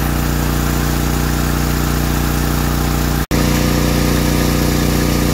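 Generac MegaForce 6500 portable generator's engine running steadily under a heavy 5,000-watt load, holding about 59 hertz. The sound breaks off for an instant about three seconds in.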